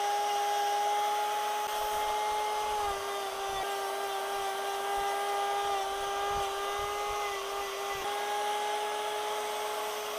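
A high-speed rotary power tool with a cheap carving gouge disc runs at a steady whine while cutting into wood. Its pitch sags slightly about three seconds in as the disc takes load, and wavers a little after that.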